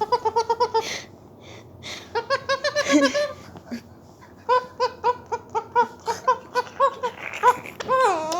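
Indian ringneck parrot mimicking laughter: quick runs of evenly pitched "ha-ha-ha" syllables in three bouts. Near the end it gives a call that falls and then rises in pitch.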